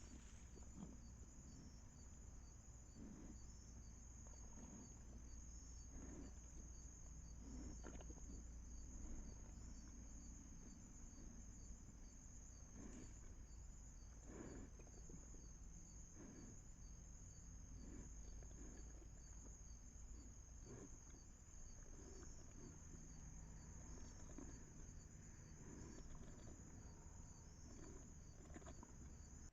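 Faint, steady high-pitched chirring of night insects such as crickets, pulsing evenly throughout, with a few soft scattered knocks and a low rumble underneath.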